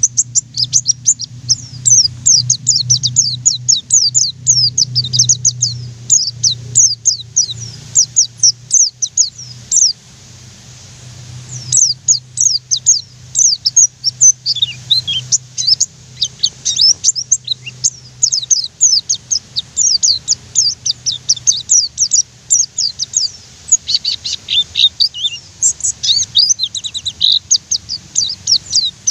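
White-eye (pleci) chirping in a rapid, continuous run of short high-pitched notes, several a second, breaking off for about two seconds a third of the way in. A faint low steady hum sits underneath.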